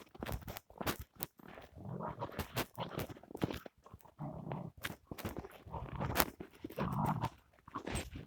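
Footsteps crunching through deep snow in a quick irregular series, with a dog making low rough sounds several times in between.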